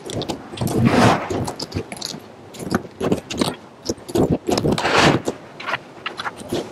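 Wooden roofing batten strips clattering and knocking as roofers handle and fasten them on a roof deck: a quick, irregular run of clicks and knocks, with two longer rattles about a second in and near five seconds in.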